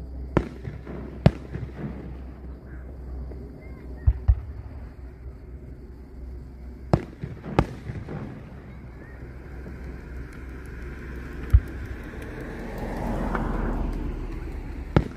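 Distant aerial firework shells bursting: about eight sharp booms at irregular intervals, some in quick pairs, over a steady low background rumble. A broad swell of rushing noise rises and fades in the last few seconds.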